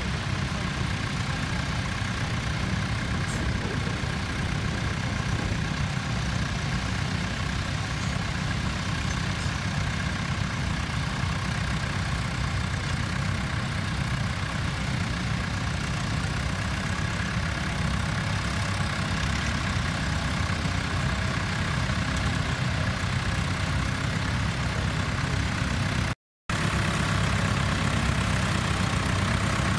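Tractor engine running steadily. The sound cuts out completely for a split second near the end.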